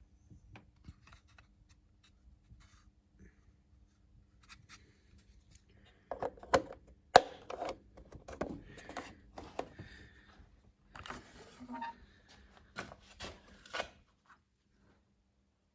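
A faint steady hum, then from about six seconds in a run of irregular clicks, knocks and rubbing, like something being handled, which stops shortly before the end.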